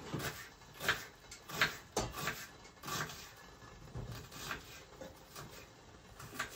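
Kitchen knife dicing a red onion on a wooden cutting board: irregular knocks of the blade against the board, about one or two a second.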